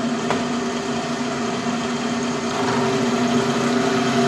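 Milling machine running steadily under its servo power feed as the end mill is fed into a plastic puck held in a three-jaw chuck, cutting the puck's channel. A single click comes just after the start, and the running tone grows a little stronger about halfway through.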